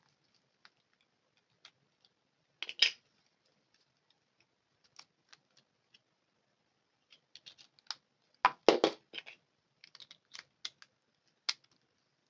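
Scattered light clicks and taps from handling a phone and its packaging. There is a louder clatter about three seconds in and a longer, louder burst of knocks and rustling near nine seconds.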